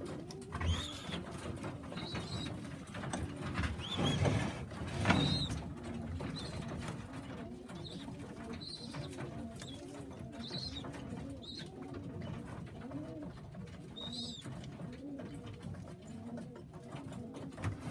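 Domestic pigeons in a loft cooing over and over, with short high chirps scattered through and a few soft knocks about a second, four and five seconds in.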